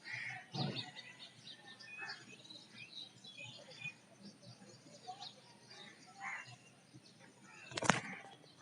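Several small birds chirping and calling over a faint outdoor background, with one sharp knock shortly before the end.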